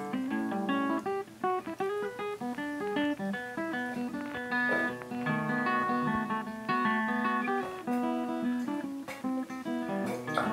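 Background music: a plucked guitar playing a melody of short notes over a steady bass line.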